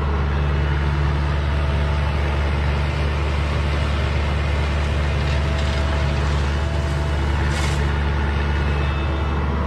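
Diesel engine running steadily at a constant speed, with a short hiss about seven and a half seconds in.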